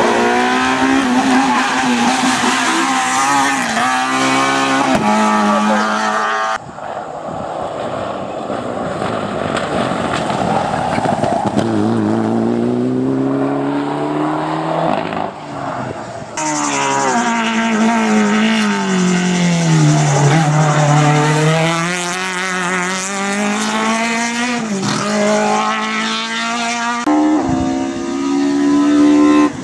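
Rally-prepared hillclimb cars driven hard through tight bends one after another, engines revving with the pitch climbing and dropping at each gear change and lift. The sound changes abruptly three times as one car gives way to the next, one of them a Mitsubishi Lancer Evolution.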